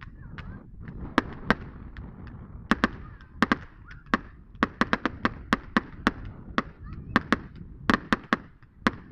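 Firework display: a rapid, irregular string of sharp bangs and cracks, several a second, over a steady low background rumble.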